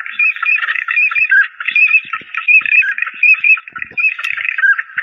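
Ducks calling: a dense, continuous run of short, repeated quacking calls, overlapping one another.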